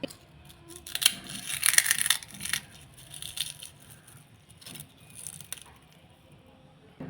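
Irregular bursts of crunching and rustling from handling food during preparation, loudest from about one to two and a half seconds in, with a few smaller bursts after.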